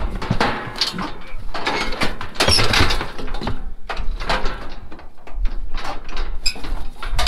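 Steel Priefert cattle squeeze chute clanking and rattling as a calf shifts inside it and its headgate and levers are worked: a run of irregular metal knocks and clatters.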